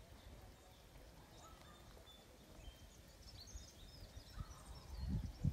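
Faint, scattered bird chirps over a low outdoor rumble. A few low thumps come in near the end.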